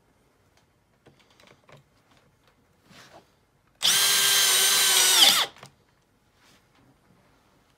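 Makita XPH07 18V brushless hammer drill driving a concrete screw into a concrete block: about a second and a half of steady motor whine near the middle, its pitch sagging just before it cuts off. The drive ends with the screw's head snapped off, with the clutch not in use.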